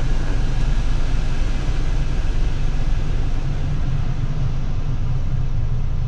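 Car climate-control blower fan running at high speed, a steady rush of air from the dashboard vents heard inside the cabin, over a low steady hum. The rush eases off slightly about halfway through.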